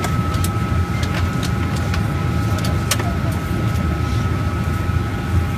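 Airliner cabin noise: a steady low rumble from the aircraft with its engines running, a faint steady whine above it, and a few scattered light clicks.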